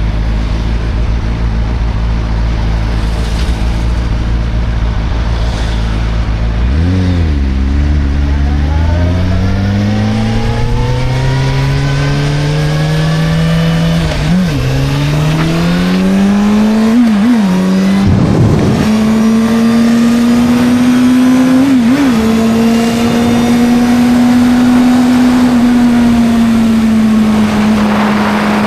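Suzuki GSR 600's inline-four engine idling, then pulling away about a quarter of the way in, the revs climbing with several quick dips at the gear changes before holding a steady cruise for the last few seconds.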